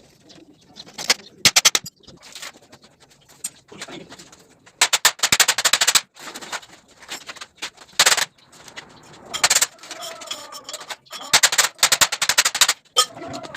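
Arc welding in short bursts: a fast crackling buzz that starts and stops, with the longest burst about a second long, typical of tack and stitch welds on steel.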